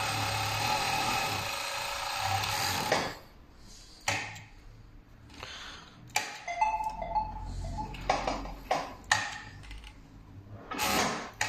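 Four-thread overlock sewing machine with a tape feeder stitching at speed, gathering fabric on its third program, for about three seconds, then stopping abruptly. After it stops come scattered sharp clicks and knocks of the machine and fabric being handled.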